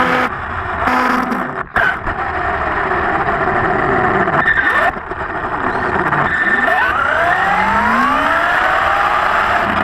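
Radio-controlled buggy motor and drivetrain whining, its pitch rising and falling over and over as the cars speed up and slow down, over a steady rumble of tyres and gears on pavement.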